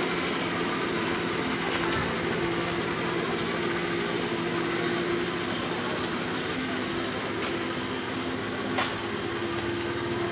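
Recorded Tiger I tank engine sound played through the small speaker of the mp3 sound unit fitted in a Heng Long 1:16 RC Tiger I tank as it drives: a steady low engine drone, with a few sharp ticks.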